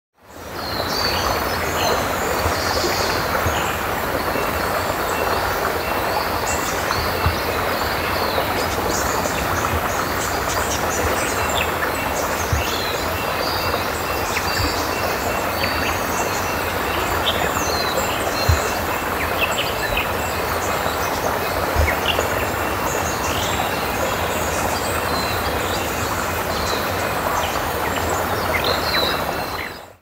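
Rainforest ambience: a steady rushing wash of noise with many small birds chirping and calling high above it, and a few soft low thuds. It fades in at the start and fades out at the end.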